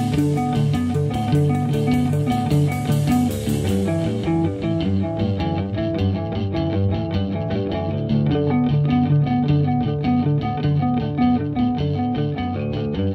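Math rock instrumental passage: electric guitar and bass guitar playing a fast, repeating interlocking riff. A bright high wash fades away in the first few seconds.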